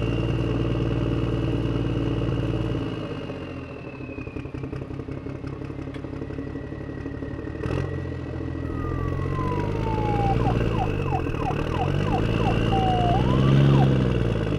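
Police siren sound effect wailing slowly up and down over a vehicle engine running. The engine fades out a few seconds in, comes back about halfway through, and rises and falls in pitch near the end.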